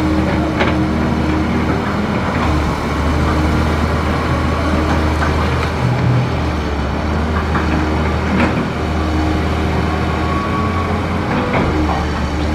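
Caterpillar 320C excavator's diesel engine running steadily under work, with a few sharp knocks over it.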